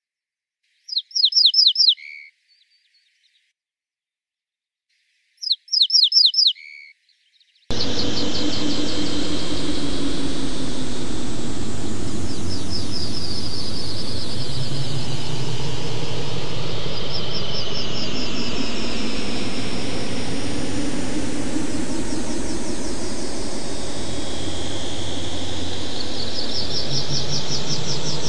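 Ortolan bunting singing twice, each phrase a quick run of about five identical high notes ending on one lower note. About eight seconds in, a loud synthesized wash of noise with slow sliding tones cuts in suddenly and runs on, with the bunting's note runs still heard over it now and then.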